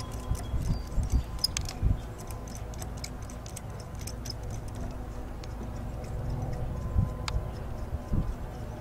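Small metallic clicks and ticks, irregular and scattered, as the metal fittings at the foot of a sailboat's wire forestay are handled and tightened by hand, with the sharpest click about seven seconds in. A low rumble of wind on the microphone runs underneath.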